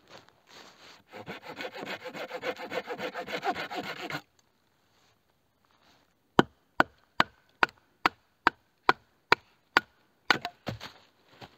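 Hand saw cutting through wood in quick, rhythmic strokes for about three seconds. After a pause come about nine sharp, evenly spaced wooden knocks, a little over two a second, and a few more near the end.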